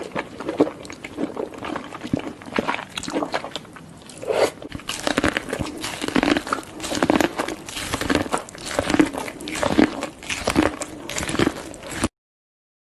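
Close-miked mukbang eating of seafood: steady wet chewing, smacking and crunching bites. The sound cuts off abruptly near the end.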